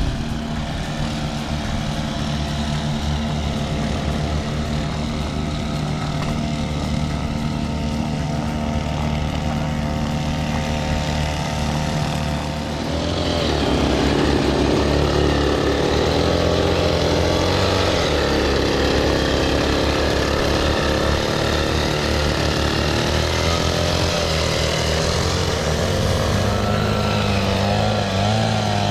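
Small two-stroke engines of motorized backpack sprayers running steadily while spraying insecticide mist. About 13 seconds in, one sprayer close by becomes louder and fuller.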